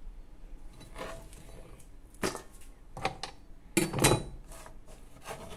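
Kitchen utensils and containers being handled: a few separate knocks and clinks, the loudest cluster about four seconds in.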